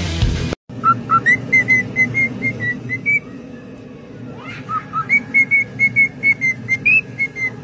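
Parrot whistling a tune in short, clear notes: two phrases, each opening with two lower notes and then a quick run of about four notes a second at a higher pitch, the second phrase ending with a slightly higher note.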